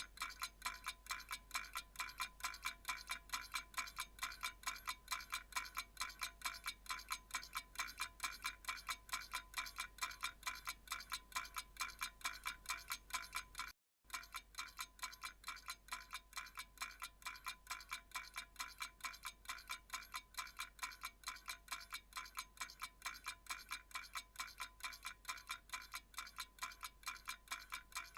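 Faint, evenly repeated high chime-like ticks, about three or four a second, with a brief break about halfway through.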